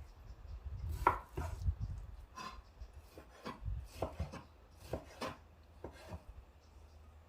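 Knife chopping on a cutting board: a run of uneven knocks, loudest about a second in.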